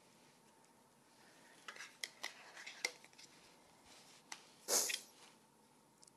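Kitchen knife cutting a flour tortilla on a cutting mat: a few sharp clicks of the blade against the mat about two seconds in, then a louder brief scrape about five seconds in as the tortilla is cut and moved.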